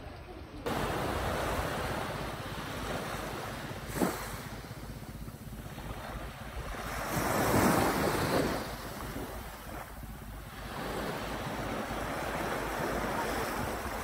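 Small waves washing up onto a sandy beach, with wind on the microphone. The surf steps up suddenly just after the start, a brief sharp tap comes about four seconds in, and one wash swells loudest about halfway through.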